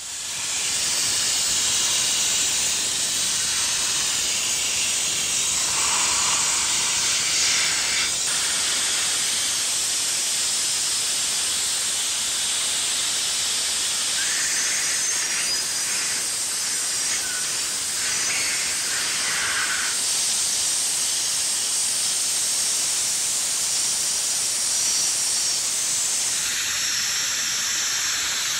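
Dry ice blaster firing pellets on compressed air against the bare alloy castings of a Lamborghini Countach V12 engine: a loud, steady hiss that starts about half a second in. Near the end a thin, high, steady whine joins it.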